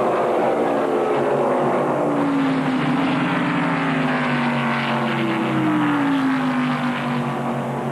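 V8 NASCAR Winston Cup stock cars running at racing speed. The engine note drops in pitch as cars pass, once about two seconds in and again from about five seconds in.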